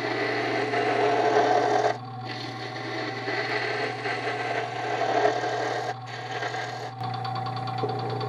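Wood lathe running with a steady motor hum while a turning tool cuts into a spinning glued-up walnut blank, a continuous rough scraping. The cutting stops about seven seconds in, leaving the lathe running on its own.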